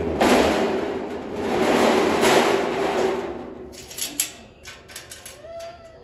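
Metal pull-out tray of a heavy-duty wire dog crate scraping along its runners, in two long swells, followed by a few sharp metallic clicks and knocks as the crate is handled near its door latches.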